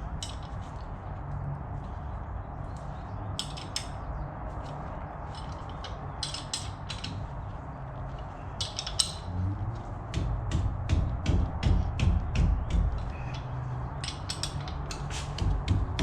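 Ratchet wrench clicking as the caliper bolts are tightened: scattered clicks at first, then a quicker run of clicks about halfway through, with heavier knocks underneath.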